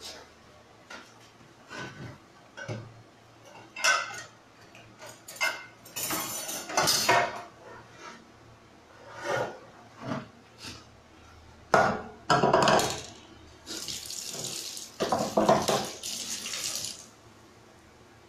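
Kitchen handling sounds: a string of knocks and clinks of dishes, utensils and containers, with a louder clatter a little past the middle. Near the end comes a few seconds of hissing rush, like water running.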